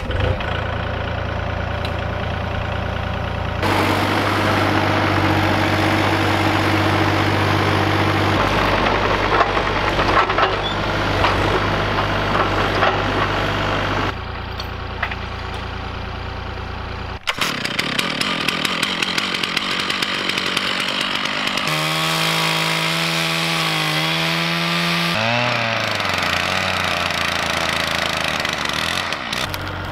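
A Kubota KX040-4 mini excavator's diesel engine running steadily for the first half, then a chainsaw cutting into a log, its pitch rising and falling.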